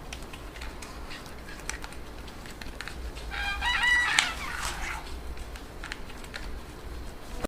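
Rooster crowing once, about three seconds in, a single call that steps up in pitch and holds before trailing off. A steady low rumble and a few faint clicks run underneath.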